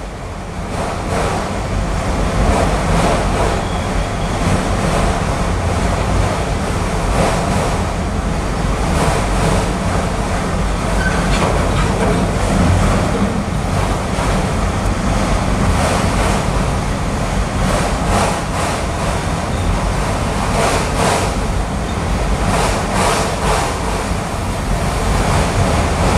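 Autorack freight cars rolling past on the rails: a steady rumble of steel wheels on track, with groups of clicks as wheels cross rail joints.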